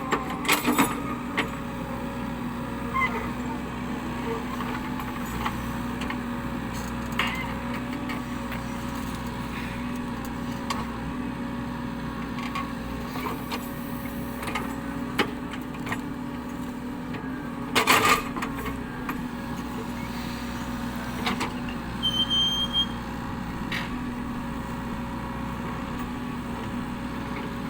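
Cat 307E2 excavator's diesel engine running steadily, with scattered knocks and clanks of the machine at work; the loudest is a sharp bang about 18 seconds in. A brief high squeak comes about 22 seconds in.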